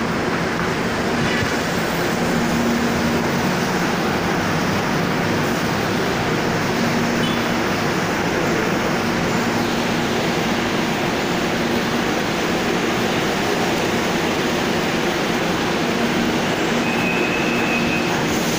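Metro train standing at the platform, a steady running noise of its machinery, with a brief high tone near the end.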